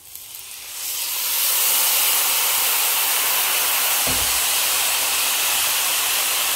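White wine poured onto hot toasted risotto rice in a pan, sizzling and hissing steadily as it boils off. The hiss builds over the first second or so. A low bump about four seconds in.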